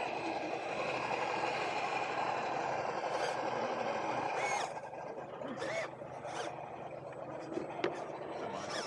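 Carisma SCA-1E Range Rover RC scale crawler's electric motor and geared drivetrain whining steadily, with tyres and chassis grinding over rough ground, heard close up from its bonnet. The drive stops about halfway through, leaving scattered small clicks and knocks.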